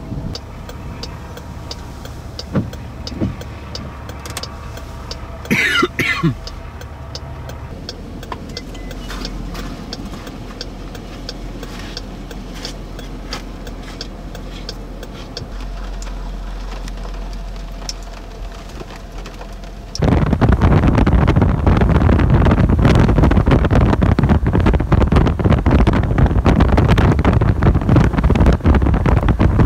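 Low, steady hum of a vehicle idling, with faint clicks. About two-thirds of the way through it switches abruptly to loud wind buffeting the microphone.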